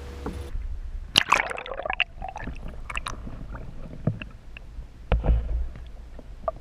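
Muffled water sloshing and gurgling picked up by a camera held underwater, with irregular knocks and small splashes, loudest about a second in and again about five seconds in.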